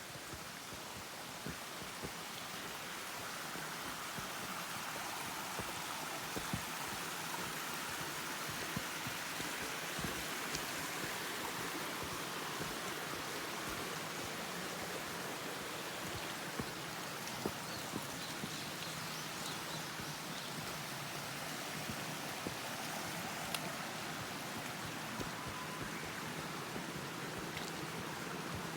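Water running steadily, a continuous even rush, with scattered small splashes or drips.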